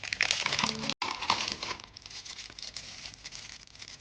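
Plastic packaging crinkling as it is handled, loudest for the first two seconds and softer after that, with a split-second break about a second in.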